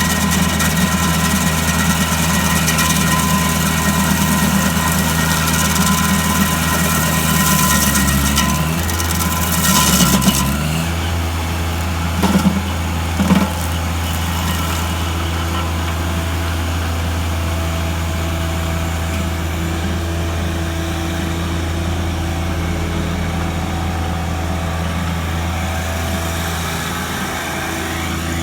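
Gasoline engine of a Woodland Mills WG24 stump grinder running steadily. About eight seconds in, its pitch dips and wavers, then settles into a steadier, slightly quieter run. Two short knocks come a few seconds after that.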